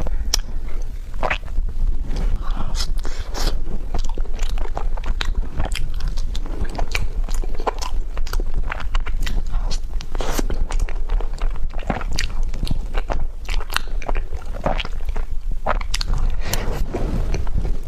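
Close-miked ASMR eating: chewing and biting of a tiger skin roll, a soft sponge cake roll with pork floss filling, with a dense, irregular run of wet mouth clicks and light crunches.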